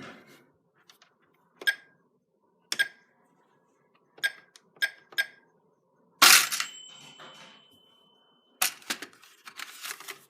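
Minnie Mouse toy cash register being played with: about five short beeping clicks as its keys are pressed, then about six seconds in a louder burst with a ringing tone held for about two seconds, followed by rapid clattering of plastic toy pieces.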